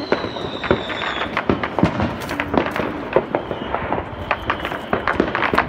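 Fireworks and firecrackers going off: many rapid, irregular pops and crackles, with a high whistle that slowly falls in pitch over the first second or so.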